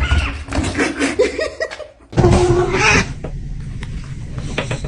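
A person laughing, with an abrupt cut to other voice sounds about two seconds in.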